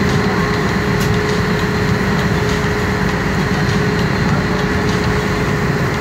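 A ferry boat's engine running steadily under way: a constant low drone with a steady hum, mixed with the rushing noise of the propeller wash churning the wake.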